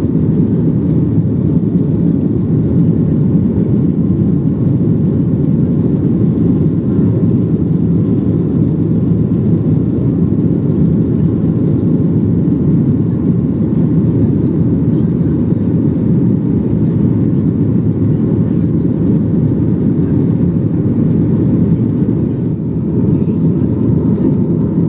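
Steady low rumble of jet engines and airflow heard inside a Boeing 737's passenger cabin.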